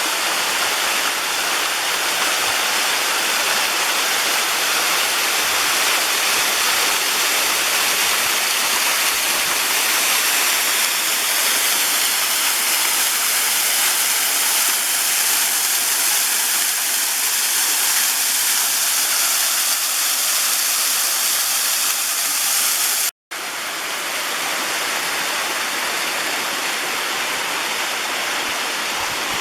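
Mountain waterfall rushing steadily. It cuts out for an instant about 23 seconds in, then resumes slightly quieter.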